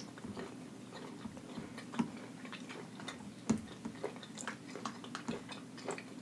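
Quiet close-up eating sounds: mouth-closed chewing and soft wet clicks as fingers pick at a sauce-covered rotisserie chicken. Scattered light ticks, the sharpest about two seconds in and again about three and a half seconds in.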